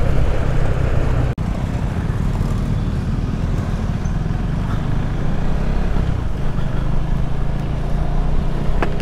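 Motorcycle engine running steadily while riding, with road and wind noise; the sound cuts out for an instant about a second and a half in.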